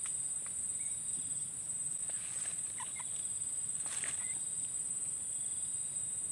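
A steady high-pitched insect-like buzz with scattered short chirps and clicks, one louder click about four seconds in. It is a strange, unidentified sound that one companion suggests is a snake, which the other doubts.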